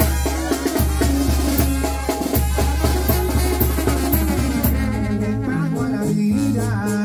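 Live brass band playing: trumpets and a tuba carrying the melody and bass over a drum kit and Latin percussion. The drumming thins out near the end while the tuba and horns play on.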